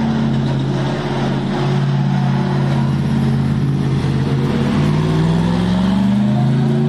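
Twin-turbo V8 of the Toyota GR GT3 race car prototype running at a steady low speed, then rising in pitch over the last two seconds or so as the car accelerates away.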